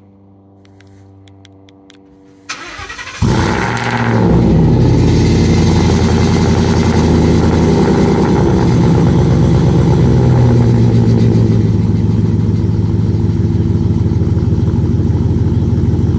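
A 2016 Shelby F-150's V8 is started cold through Borla XR1 mufflers with gutted catalytic converters. After a faint hum for the first couple of seconds, the starter cranks briefly. The engine catches a little after three seconds with a rev flare, then settles into a steady, loud idle, clean and not raspy.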